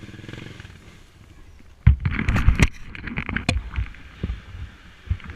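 Trail motorcycle engine, a Honda XR 250 Tornado bored out to 280cc, running at low revs. About two seconds in comes a loud run of sharp knocks and clattering lasting around two seconds, then a few more scattered knocks.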